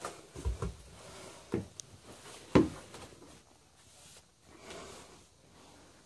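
A few dull thumps and rustling as someone moves about on a wooden loft floor, the loudest thump about two and a half seconds in.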